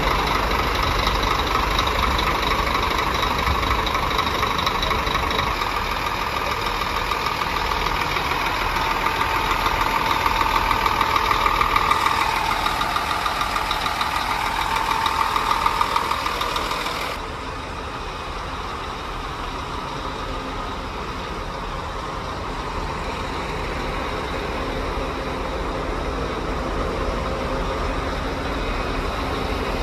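Diesel engines of Scania touring buses idling, with a faint rhythmic pulsing in the middle. The sound changes abruptly about twelve seconds in and again about seventeen seconds in, then settles to a quieter, steady idle.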